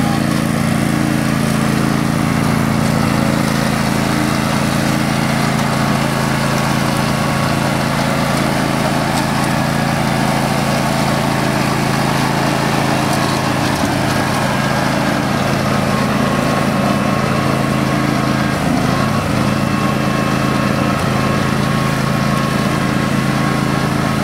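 Older Garden Way Troy-Bilt hydrostatic riding mower, its 14 horsepower Vanguard V-twin engine running steadily under load as the deck cuts tall grass, with a couple of brief dips in the engine note partway through.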